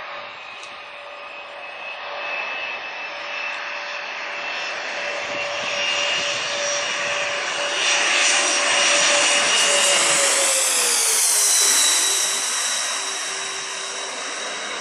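Jet airliner passing low overhead: the engine roar and whine build up, peak about two-thirds of the way through, and the whine drops in pitch as the plane goes past.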